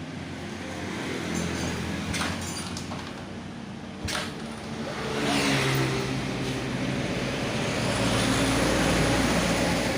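A motor vehicle engine running, with a click about four seconds in; it grows louder from about five seconds in and is loudest near the end.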